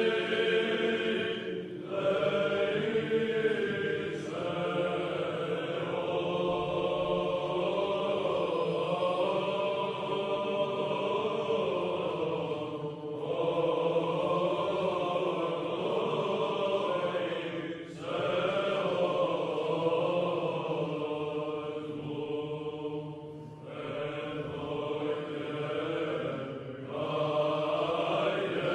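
Greek Orthodox Byzantine chant sung in long, winding melodic phrases, broken by several short pauses between phrases.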